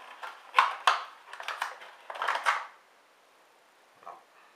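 A kitchen knife's presentation box being handled: its insert lifted out and set down on a wooden table, with a few sharp knocks and scraping. The handling stops a little past halfway, with one small knock near the end.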